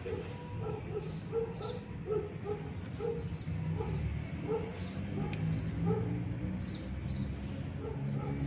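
Birds chirping: repeated short, high, falling chirps, often in pairs, with shorter lower-pitched calls beneath them over a steady low background hum.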